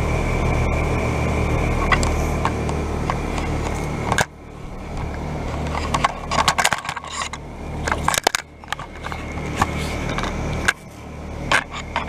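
2017 Carrier Comfort heat pump outdoor unit humming steadily in a dry defrost cycle, compressor running with the outdoor fan stopped. About four seconds in the hum drops sharply, and scraping, rustling and clicks of handling follow over a quieter steady hum of running heat pumps.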